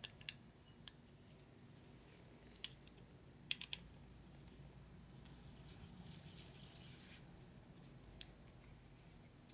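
Faint, scattered small metal clicks from handling the parts of an aluminium brake caliper: pins, bolts and a hex key. About three and a half seconds in there is a quick run of three clicks.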